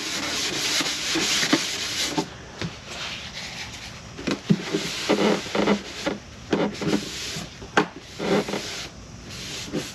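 Hand wet-sanding of a motorcycle saddlebag: sandpaper rubbing over the surface in strokes for about two seconds, then quieter handling with scattered light knocks and clicks.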